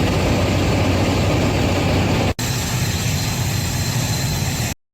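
Jet airliner engine noise: a steady, even rush. About two and a half seconds in it breaks off for an instant and resumes slightly changed, then stops abruptly near the end.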